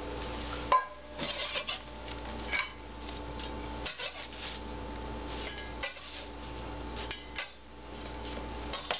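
Chef's knife and gloved hand scraping sliced sweet pepper rings across a plastic cutting board and into a stainless steel bowl. Scattered scrapes and light knocks, the sharpest just under a second in, over a steady background hum.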